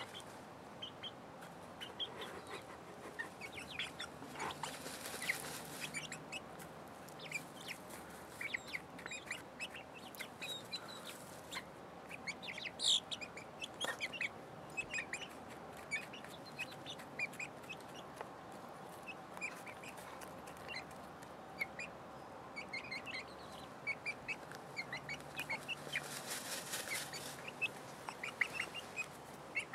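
Hens dust-bathing in sand: scattered soft clucks among small scratching and pecking ticks, with two short spells of rustling in the sand, about five seconds in and near the end.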